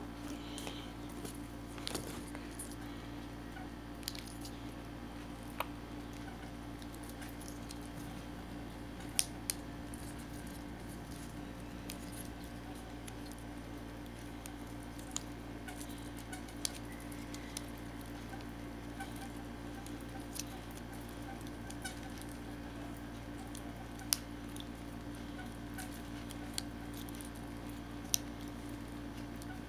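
Small objects being handled, giving scattered sharp clicks and taps every second or two over a steady low hum.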